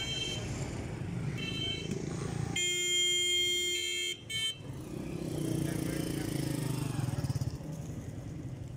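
Street traffic with a vehicle horn: two short high beeps, then a steady horn blast of about a second and a half a few seconds in, over a low rumble of engines.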